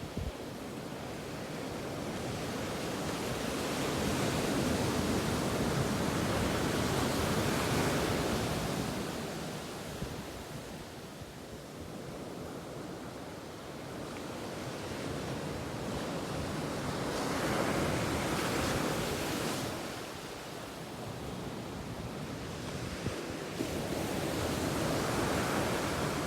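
Ocean waves breaking on a beach, the surf swelling and fading three times.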